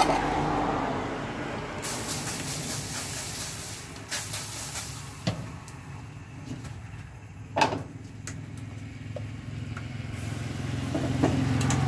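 Road traffic going past, with a vehicle engine growing louder near the end, and a few sharp knocks in between.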